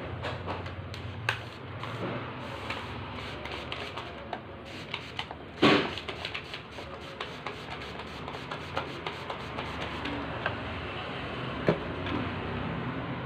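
Small clicks and knocks of metal and plastic copier fuser-unit parts being handled and fitted, with one louder knock about six seconds in and another near the end, over a steady low hum.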